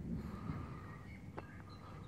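Outdoor ambience: a low, uneven rumble with faint, short bird chirps over it and a single sharp click about one and a half seconds in.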